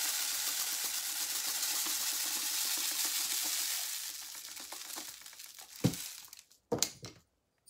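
Dry rice grains pouring through a plastic funnel into a cardboard paper-towel tube, a steady hiss that thins out about four seconds in. A few sharp taps follow near the end.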